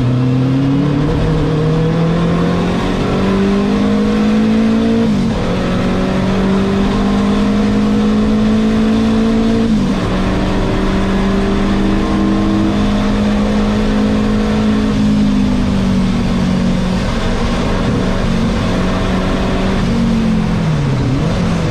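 Renault 5 Turbo 2's mid-mounted turbocharged four-cylinder engine at racing speed, heard from inside the cockpit. The note climbs and drops sharply twice, about five and ten seconds in, then holds steady and eases off, with a few quick rises and falls near the end.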